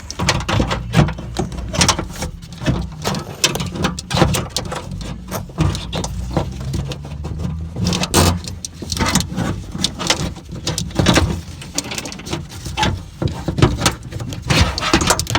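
Irregular clicks, knocks and rattling of a car door's lock mechanism and its linkage being handled after coming free of the door.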